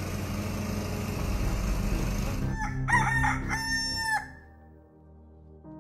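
A steady rushing noise, then a rooster crows once about halfway through, the call ending in a long held note. Faint low music tones follow.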